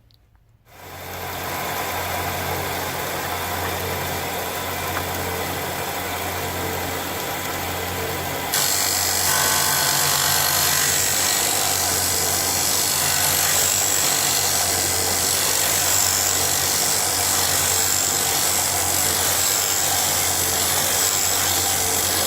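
Charnwood BD15 belt and disc sander's 250 watt motor starting up and running steadily with a low hum. About eight seconds in the sound turns louder and harsher.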